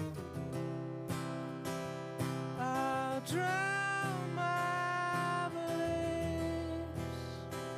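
Background music with strummed acoustic guitar; about two and a half seconds in, a melody of long held notes enters over it.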